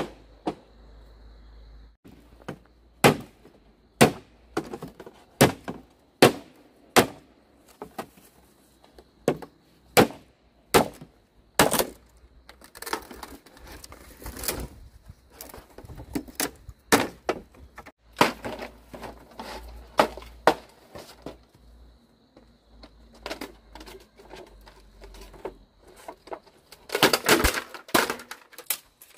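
A series of sharp knocks, about one a second at first, then more irregular, with a quick flurry of them near the end.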